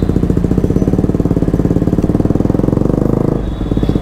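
KTM Duke 200's single-cylinder engine running through an aftermarket full-system exhaust, a loud, rapid pulsing note. The note builds slightly, then dips briefly about three and a half seconds in.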